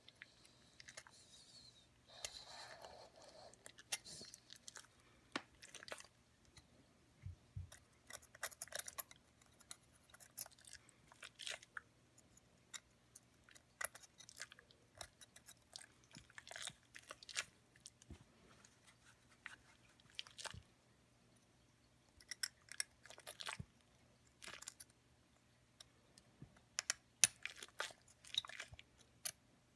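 Steel hand dental scaler scraping tartar off a dog's teeth: faint, irregular scratches and small crunchy clicks, coming in clusters with short pauses between.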